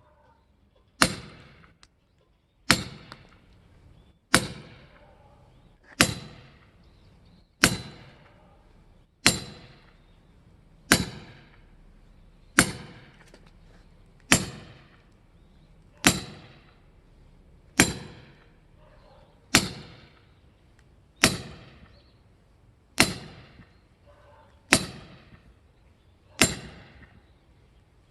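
Firewood being split: about sixteen sharp, evenly paced strikes, one every 1.7 seconds or so, each with a brief ring.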